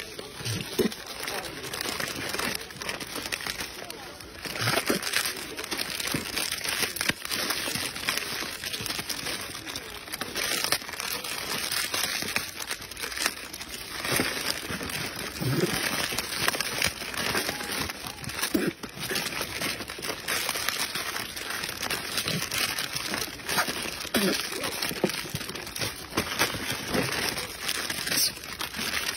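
Plastic snack-cake wrappers crinkling and rustling continuously as macaques grab packets out of cardboard boxes and pull them open.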